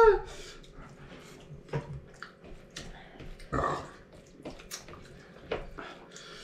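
Eating mouth sounds: scattered wet smacks and clicks of chewing at irregular intervals. A laughing voice trails off right at the start.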